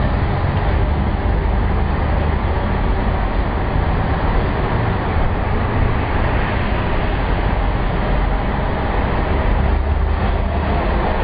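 Steady rumble of motor traffic in a road tunnel, picked up by a helmet camera on a bicycle riding close alongside cars and trucks.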